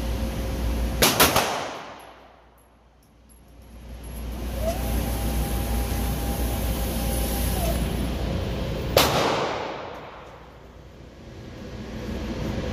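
9mm Canik TP9 Elite SC pistol fired in an indoor range: a quick cluster of two or three shots about a second in, echoing off the walls. Then the electric target carrier runs with a steady whine for about three seconds, bringing the target back, and another shot rings out about three-quarters of the way through, over a steady low hum.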